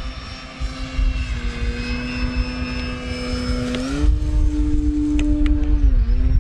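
E-flite Ultimate 3D electric RC biplane's brushless motor and propeller humming in flight at a steady pitch, which rises about four seconds in as the throttle comes up and dips briefly near the end. A low rumble of wind on the microphone runs underneath.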